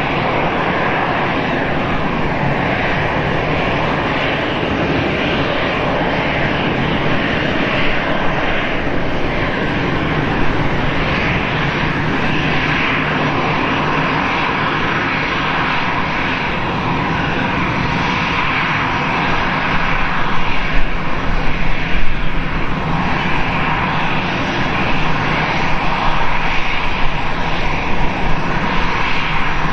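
Twin turbofan engines of an Airbus A320-family airliner running at taxi idle, a steady jet whine and rush. The sound grows louder and more uneven in the second half.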